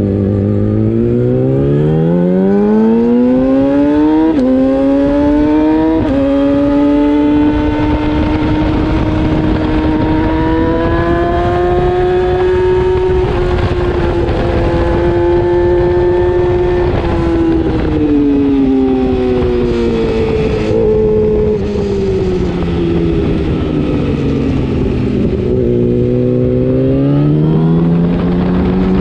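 600cc race motorcycle engine heard onboard, revving up as the bike accelerates, holding high revs at speed, then dropping in pitch as it slows and rising again near the end. Wind rush runs under the engine throughout.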